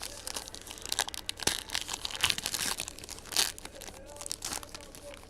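Trading card pack wrappers being torn open and crinkled by hand, a dense run of crackles and rips that is loudest in the middle.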